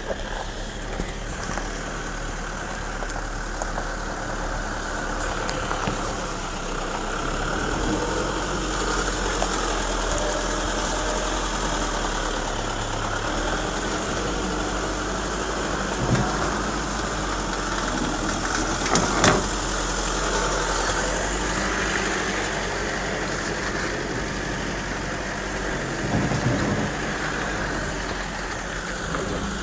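Toyota Hilux D-4D turbodiesel engine running at low revs while the pickup crawls off-road, heard from inside the cab. A few short knocks from the truck come over the steady engine and road noise, the loudest a little past halfway.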